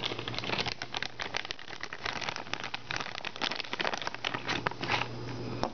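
Thin clear plastic toy bag crinkling and crackling as fingers pull it open, a dense run of small irregular crackles.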